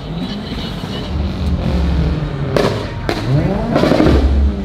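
Cars driving past, one revving its engine with two sharp exhaust bangs about half a second apart around the middle, followed by rising and falling revs. Low bass thumps pulse underneath.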